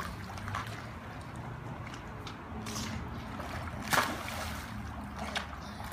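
Swimming-pool water sloshing and lapping as children paddle about, with one sharper splash about four seconds in.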